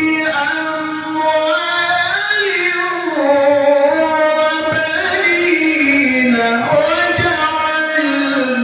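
A male qari's melodic Quran recitation (tilawah) in one long, drawn-out ornamented phrase, the voice gliding slowly up and down in pitch.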